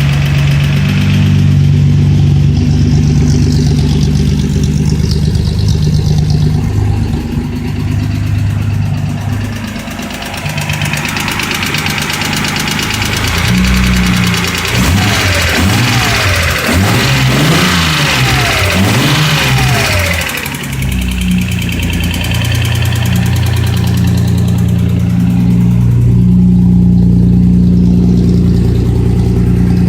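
Datsun 240Z's L24 inline-six running at idle, revved up and down several times in the middle, then settling back to idle. The owner presents it as a bad engine noise, pointing to a fault.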